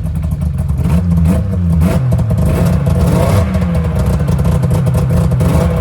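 Yamaha Venture snowmobile's two-stroke engine running steadily at a fast idle just after its rebuild. At idle it fires on only two cylinders, which the owner puts down to carburetors that need cleaning.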